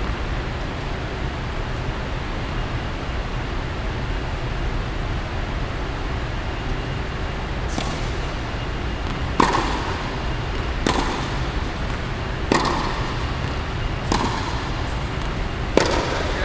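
Tennis balls struck hard by a racket, five sharp cracks about a second and a half apart starting around halfway in, each echoing in a large indoor hall, over a steady low background hum.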